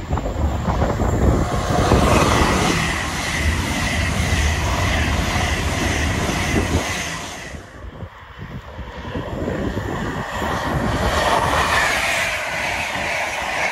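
Electric express trains passing close by at speed: a loud, steady rush of wheels on rail and air, with a high whine. The sound dips about eight seconds in and then builds again as an LNER InterCity 225 set goes by.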